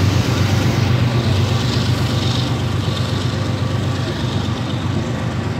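Double-stack intermodal freight train rolling past: a steady rumble of container cars' wheels on the rails.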